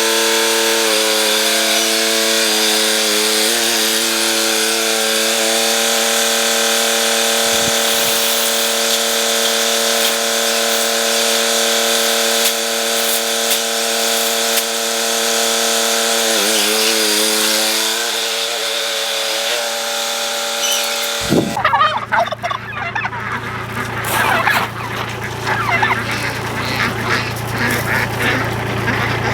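A motor runs with a steady hum for about twenty seconds, then cuts off abruptly; after that, farm poultry call and honk amid scuffling noise.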